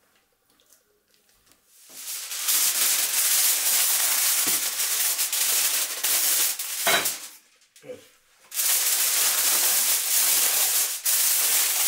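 Aluminium foil crinkling and rustling loudly as it is folded and pressed around a whole turkey, starting about two seconds in, with a short break just past the middle.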